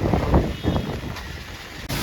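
Wind buffeting the microphone: an irregular low rumble with uneven thumps that eases off and then cuts off abruptly near the end.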